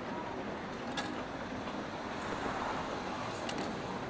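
Layered rainy-cafe ambience: a steady hiss of rain with a low background rumble, and two faint light clicks, about a second in and near the end.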